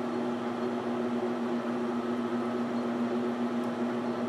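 Metal lathe running with a steady hum while a spiral-flute 1/4-20 bottoming tap cuts threads into a spinning copper rod, power-tapping a threaded hole.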